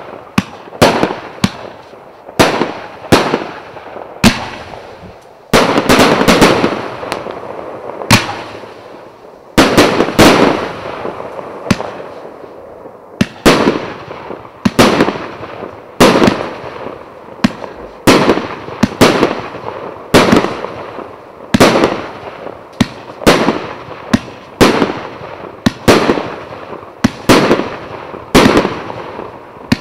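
A 250-shot fan-pattern firework cake of 1 to 1.25 inch tubes firing continuously: sharp bangs about one or two a second, each trailing off in a short echo, with denser volleys about six and ten seconds in.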